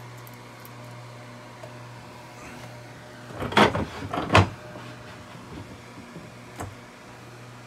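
Two loud knocks with some clattering between them, about three and a half to four and a half seconds in, as a plastic-cased converter box is handled against its wooden mounting blocks inside a locker; a faint click follows a couple of seconds later, over a steady low hum.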